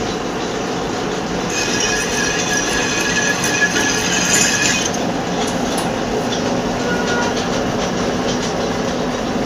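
Manual metal lathe running with a steady mechanical hum; from about a second and a half in to about five seconds in, a high-pitched metallic squeal rides over it.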